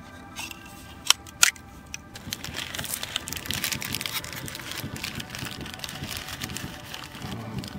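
Two sharp clicks about a second in, then a steady crackle and rustle of hands handling small objects such as toothpicks and a plastic packet.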